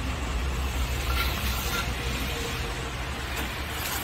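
Cardboard packaging being pulled and torn off a porcelain paver, a few short rips and rustles over a steady low rumble like an engine running.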